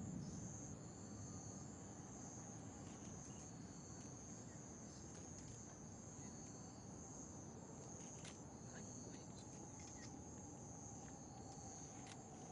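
Insects chirring in a steady, high, continuous trill over faint low background noise.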